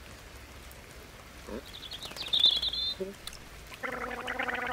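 A cartoon bird twittering in a quick high trill about two seconds in, the loudest sound here, followed near the end by a lower, rattling, gargling call.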